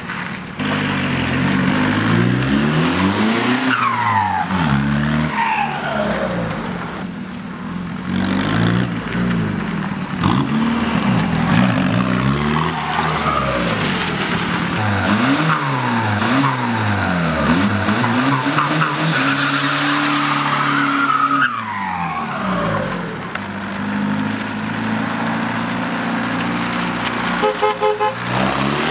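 Volkswagen New Beetle TDI's four-cylinder turbo-diesel, its exhaust broken loose, revving up and down over and over as the car is driven hard in tight turns. High squeals falling in pitch come a few times, and a quick run of short beeps comes near the end.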